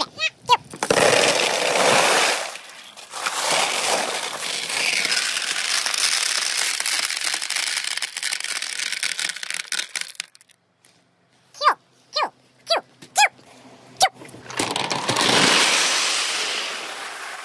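Balls rolling fast through a bamboo-tube marble run, a long rushing roll that fades out at about ten seconds. A quick run of five ringing knocks follows, then another rolling rush that swells and dies away near the end.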